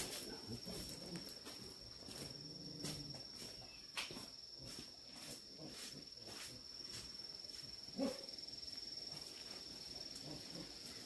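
Steady high-pitched insect trill, like a cricket, with scattered light clicks and knocks and a short animal call about eight seconds in.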